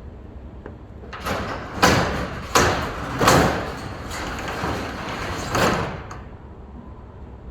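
Metal roll-up door being pulled down, a rattling rumble with several loud bangs, stopping about six seconds in.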